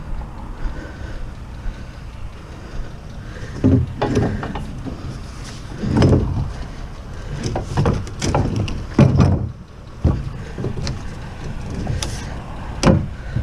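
Irregular heavy thumps and knocks of scrap wood and shelving being handled, about six hits spread unevenly, over a low steady rumble.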